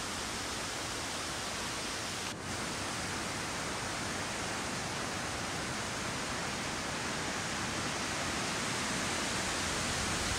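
Steady, even rushing outdoor background noise with no distinct calls or knocks, briefly dipping about two and a half seconds in.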